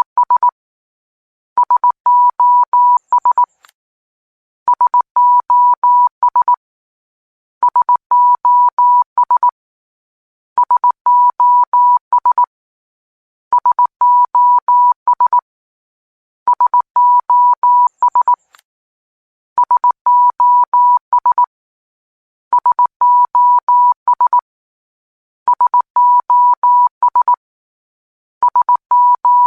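Morse code sound effect: a single steady mid-pitched tone keyed in short and long beeps, the same group of dots and dashes repeating about every three seconds with a gap between groups.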